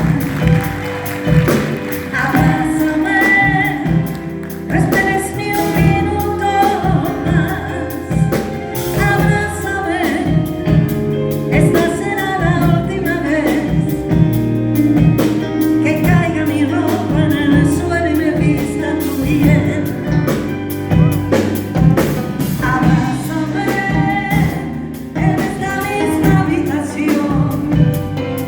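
Live band music with singing over a steady beat.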